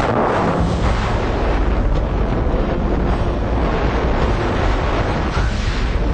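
Loud, steady rush of wind buffeting the microphone in skydiving freefall, a dense roar with a heavy low rumble.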